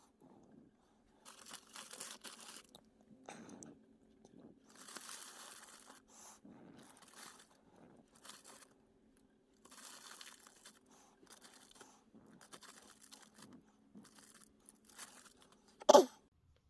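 Plastic packaging and action-figure parts being handled and moved about on a tabletop: irregular rustling with light clicks, and a sharper click near the end. A faint steady hum runs underneath.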